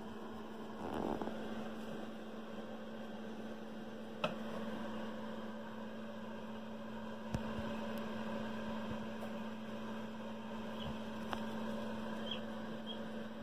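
Steady low electrical hum, with a brief rustle about a second in and a few faint clicks.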